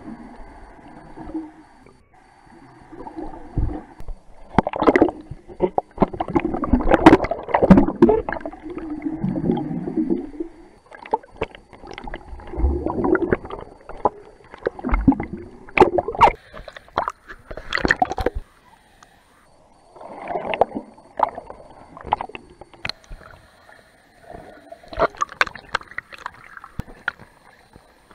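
Swimming-pool water sloshing, gurgling and splashing around a camera as it is dunked in and out of the water, in irregular bursts with a short quiet spell a little past halfway.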